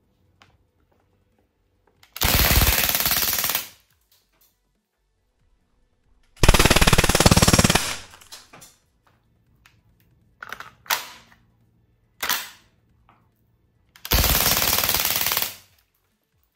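Crosman A4-P CO2 airgun firing fully automatic: three rapid bursts of about a second and a half each, with a few short, sharp sounds between the second and the third.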